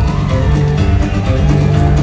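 Live country band playing an up-tempo boogie: strummed acoustic guitars, fiddle, upright bass and drums, with a steady beat and a lead line that slides up and down in pitch.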